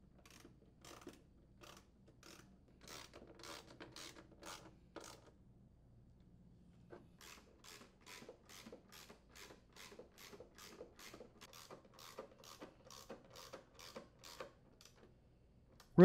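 Hand ratchet clicking in short strokes as screws are driven into the mower's transmission cover: irregular at first, then a steady run of about two to three strokes a second from about seven seconds in.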